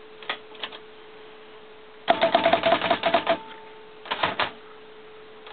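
Olympia SM9 manual portable typewriter's mechanism clicking while tabs are set: a couple of light clicks, then a rapid ratcheting run of clicks for over a second with a faint ring, then another short cluster of clicks.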